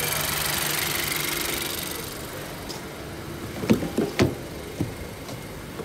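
Honda CR-V running with its AC on: a steady engine and fan hum that fades after about two seconds, then a few light knocks in the second half.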